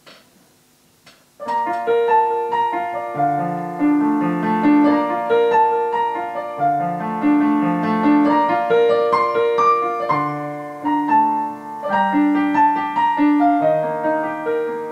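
Solo piano intro: broken chords played in a steady, repeating figure, beginning about a second and a half in after a brief quiet.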